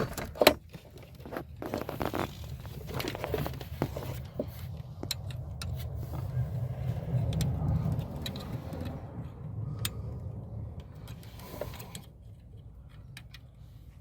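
Metal clicks and clinks of screwdriver bits and a bit driver being handled and tried in a small screw, over a steady low rumble; the clicking thins out after about nine seconds.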